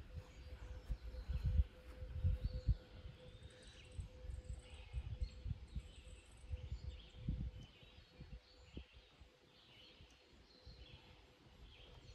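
Faint bird chirps over irregular low rumbling on the microphone, with a faint steady hum; the rumbling is stronger in the first half and dies down after about eight seconds.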